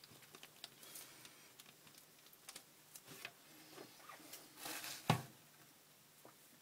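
Faint rustling and small clicks of hands handling a thin plastic zip bag on a workbench, with one sharp knock about five seconds in.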